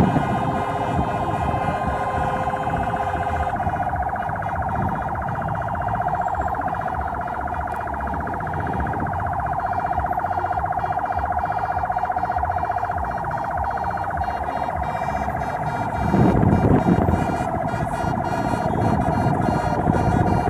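A vehicle siren sounding a steady, rapidly warbling tone over the low rumble of a moving car. The rumble swells about three-quarters of the way through.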